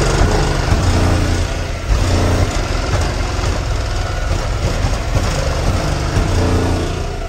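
Loud, deep bass from a high-power car audio system, coming in uneven pulses, over the steady running of an idling vehicle engine.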